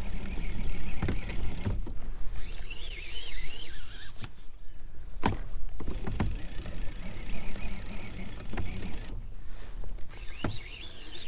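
Line-counter trolling reel being cranked, winding in lead-core line against a hooked fish, with a low steady whirring and a few sharp clicks.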